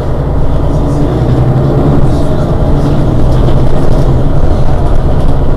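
Mercedes-Benz Citaro city bus's rear-mounted diesel engine idling steadily while the bus stands at a stop.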